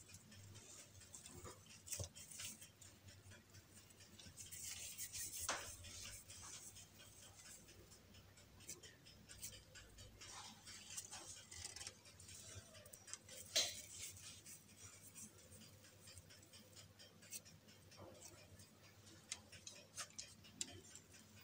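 Near silence with faint, scattered clicks and soft handling noises from hands pinching off soft cookie dough, rolling it into balls and setting them on parchment paper, with a few sharper ticks.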